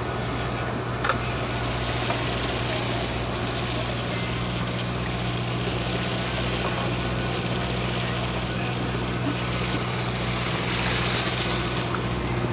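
Boat engine running steadily at idle, a low hum that gains a second steady tone about four seconds in, over a faint hiss of wind and sea. One sharp click about a second in.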